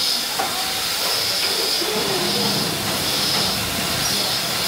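Steam locomotive giving off a steady, continuous hiss of steam.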